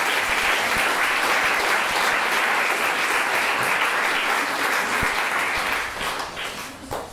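Audience applauding, a steady clapping that dies away about six seconds in.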